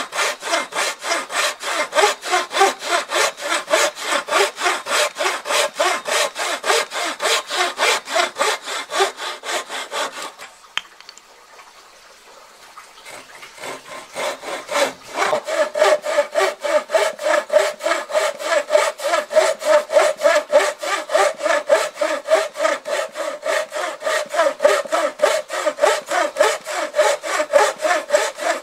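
Steel-framed hand saw cutting across a wooden tenon in quick back-and-forth strokes, about three a second. The sawing stops for a few seconds near the middle, then starts again with a clearer ringing note in each stroke.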